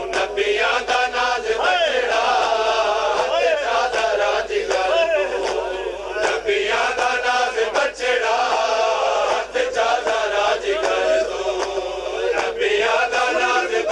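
Male voices chanting a Punjabi noha (mourning lament) in a steady, repeating melody. Frequent sharp slaps of matam, open hands striking bare chests, cut through it.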